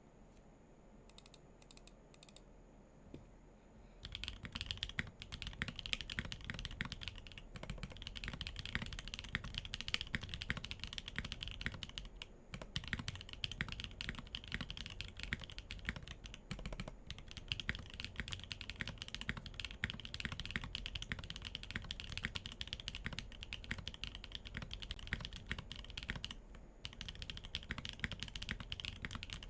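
Typing on a Weikav Lucky65 V2 65% mechanical keyboard with tactile MMD Holy Panda switches, a carbon-fibre plate, GMK keycaps and no foam. A few faint clicks come first, then a steady stream of keystrokes starts about four seconds in, broken by a few brief pauses.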